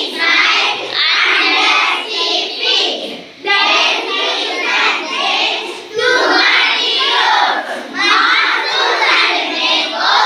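A group of schoolchildren chanting a poem about the seasons loudly in unison, in a singsong chorus, in phrases of about two seconds with short breaks between them.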